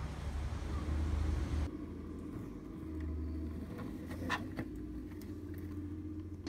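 Garbage truck engine running with a steady low hum. The sound changes abruptly under two seconds in, and a few short clanks come about four seconds in.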